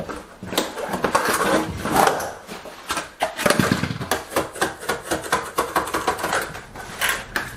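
A stiff plastic Ditra waffle underlayment membrane being unrolled and spread out on a floor, crackling and rustling in irregular bursts as it is handled.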